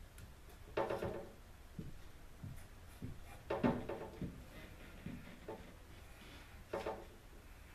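Pencil scratching on a pine board in short strokes as a curve is drawn freehand, with three louder scratches about a second in, near the middle and near the end.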